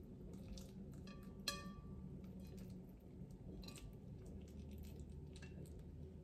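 Faint kitchen handling sounds as cabbage leaves are laid over stuffed cabbage rolls in a pot. One short ringing clink comes about a second and a half in, over a low steady hum.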